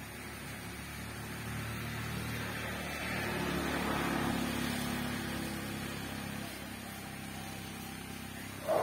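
A motor vehicle driving past: engine hum and road noise swell to a peak about four seconds in, then fade. A brief, louder sound comes near the end.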